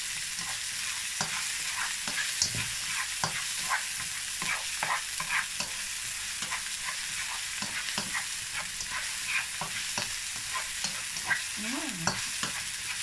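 Diced onion and garlic sizzling in oil in a non-stick wok, with a plastic spatula scraping and tapping against the pan as it is stirred.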